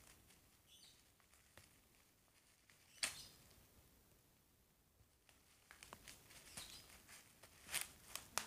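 Plastic packaging, a clear bag and bubble wrap, crinkling and rustling as it is handled and pulled open: one brief crinkle about three seconds in, then a run of faint crinkles near the end.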